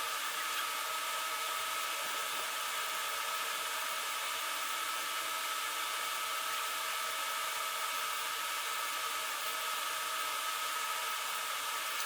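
A steady motor whir with a hiss and a constant high whine, holding the same speed and pitch throughout with no load changes.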